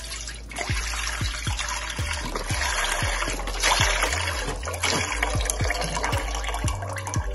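Chicken broth pouring in a steady stream from a carton into a wok, splashing and bubbling as it fills. Background music with a regular beat plays underneath.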